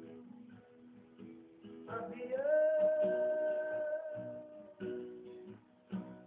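Song with acoustic guitar strumming and a long held note that slides up into pitch about two seconds in. It closes on a few separate final strums.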